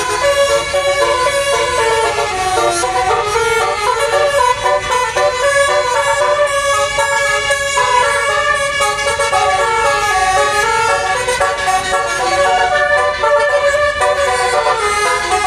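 Indonesian 'telolet' bus horn, a multi-trumpet musical horn, playing a continuous tune. Several tones sound together and step from note to note.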